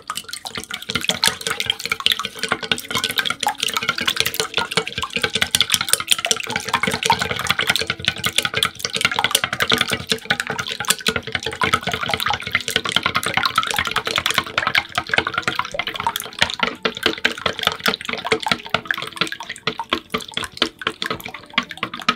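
Wooden chopsticks whisking raw eggs in a stainless steel bowl: fast, continuous clicking of the sticks against the metal with wet slapping of the beaten egg.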